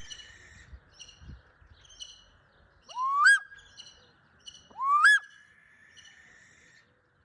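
Bird calls: two loud calls, about two seconds apart, that each swoop upward and then hold a short steady note. Between them comes a series of short, faint, high chirps.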